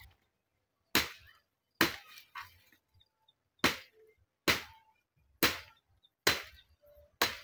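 Machete chopping into a wooden branch lying on the ground: seven sharp blows, two about a second apart, a pause of nearly two seconds, then five more at about one a second.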